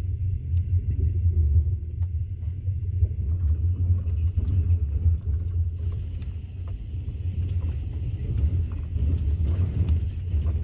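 Steady low rumble of a passenger train in motion, with a few faint clicks.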